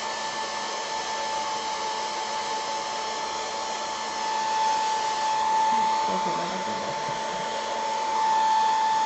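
Handheld hair dryer blowing steadily to dry crackle-finish paint, a steady whine over the rush of air. It grows louder about halfway through and again near the end.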